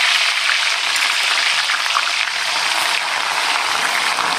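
Galangal spice paste frying in hot oil: a steady, dense sizzle with fine crackling throughout.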